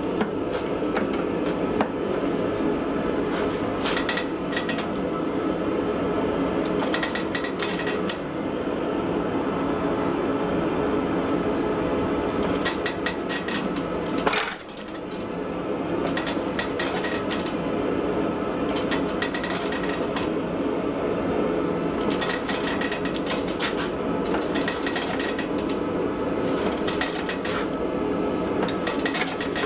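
Power hammer striking a red-hot cable Damascus bar in a rapid, steady run of blows as the blade is drawn out. It stops briefly about halfway through, then picks up again.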